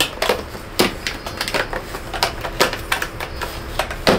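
Black plastic toolbox being unlatched and opened: an irregular series of sharp clicks and knocks from its snap catches and lid.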